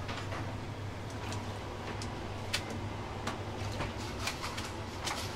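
Kitchen work at a soba counter: scattered light clinks and knocks as a wire noodle strainer, chopsticks and a ceramic bowl are handled, over a steady low hum of kitchen equipment.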